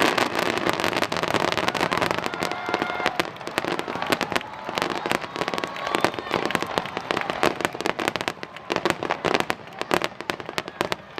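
Fireworks display: a dense, rapid crackle of many small pops, easing off and getting quieter over the second half.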